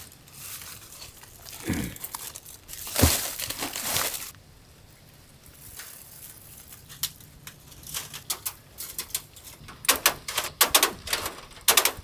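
Aluminium foil and wire mesh crinkling as they are handled, with a few dull thuds, then a run of sharp clicks from tin snips cutting wire mesh, strongest from about ten seconds in.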